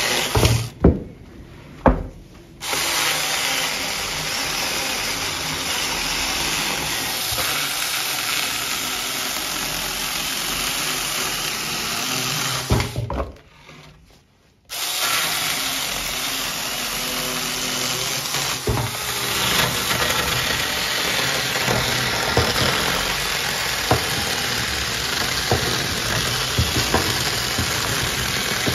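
Saker 20V cordless mini chainsaw running and cutting through wooden boards, a steady electric motor and chain sound. It breaks off briefly twice, about a second in and near the middle.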